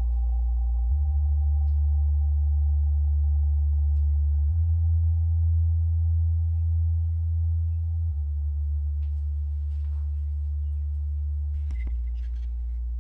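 Eurorack modular synthesizer playing a slow sequence of deep sustained bass notes, stepping to a new pitch about every three to four seconds, over a steady, fainter drone that slowly fades.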